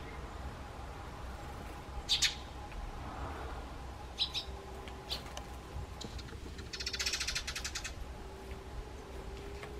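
Eurasian tree sparrows dust-bathing in gravel: a few short, sharp chirps, then a fast rattle of quick pulses lasting about a second, around seven seconds in.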